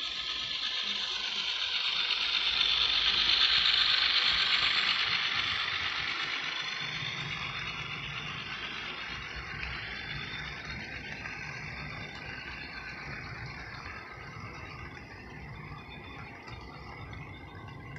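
Model freight train rolling past on sectional track: the locomotive's running noise swells to its loudest about three to four seconds in as it passes close by, then fades, and a lower rattle of the cars' wheels on the track carries on as the train goes by.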